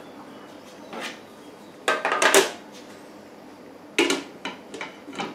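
Parts of a Moulinex food-processor steamer (steel basket, plastic trays and a glass lid) clattering and knocking as they are stacked and set in place. There is a louder clatter about two seconds in, then a sharp knock near the end followed by a few lighter taps as the lid goes on.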